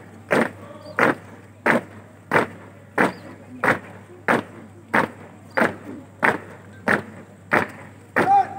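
Boots of a drill squad stamping in unison on pavement in a high-kicking parade march. The stamps are sharp and evenly spaced, about three every two seconds.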